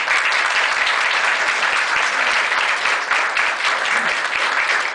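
An audience applauding, many hands clapping at a steady level.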